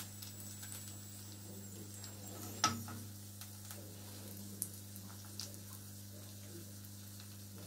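Faint sizzle of hot oil and juices left in a frying pan, with a metal spoon knocking sharply once against the pan about two and a half seconds in and a few lighter taps later, over a low steady hum.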